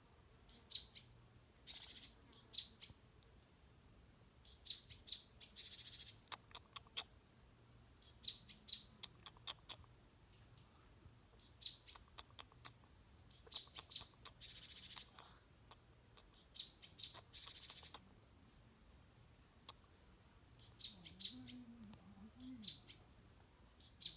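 A small songbird singing: short phrases of high, clear notes sliding downward, each ending in a buzzy trill, repeated every few seconds.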